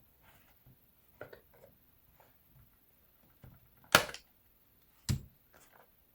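Handling of a plastic radio controller's case during disassembly: a few faint taps, then two sharp clicks about a second apart, the first the loudest.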